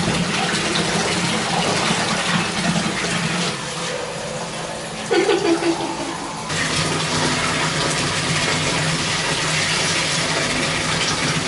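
Tap water running steadily into a bathtub, filling it, with a short pitched cry about five seconds in.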